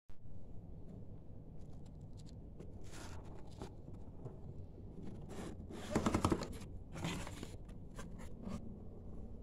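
Cardboard box being handled and opened by hand: scattered scrapes and rustles of cardboard, loudest about six seconds in.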